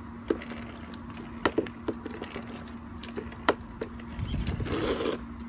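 Light plastic clicks and knocks from an RC monster truck being handled as its front wheels are turned, with a longer scraping rustle about four seconds in.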